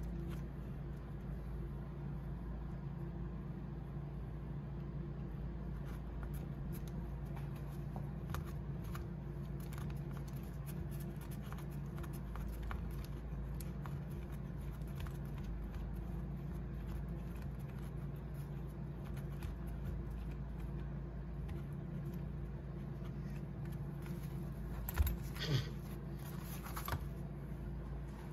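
Steel rocker arms, spacers and washers of a solid-shaft rocker kit clinking and tapping as they are slid onto the rocker shaft by hand, over a steady low hum. A few sharper metal clicks come near the end as the assembled shaft is picked up.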